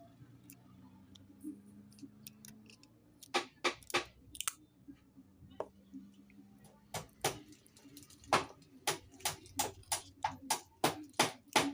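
Irregular sharp clicks and taps of small phone parts and tools being handled while the phone's screen is taken off, with a few at first and then a quicker run over the last few seconds.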